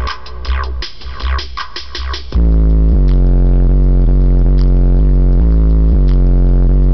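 Electronic bass music played through a Cerwin-Vega Vmax 2 15-inch car subwoofer. About two seconds in, busy electronic beats give way suddenly to sustained, very loud deep bass notes.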